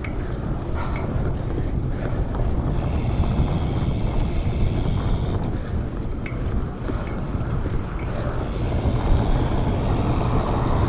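Wind buffeting a chest-mounted camera's microphone while riding a BMX bike: a steady low rumble with a few faint ticks.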